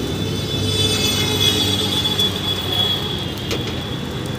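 A long, high-pitched squeal begins about half a second in and fades away near the end, over a steady low rumble.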